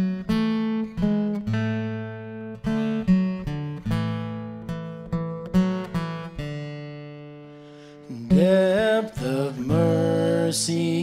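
Acoustic guitar picking a hymn introduction: single plucked notes ringing over held bass notes. About eight seconds in, voices begin singing over the guitar.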